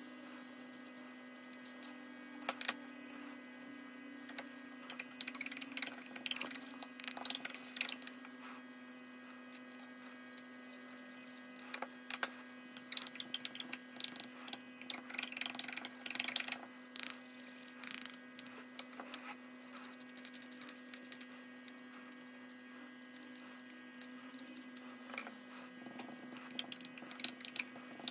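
Faint scratching and clicking of small makeup tools against powder pans and compacts being handled, in scattered groups of light ticks with a few sharper clicks, over a steady low hum.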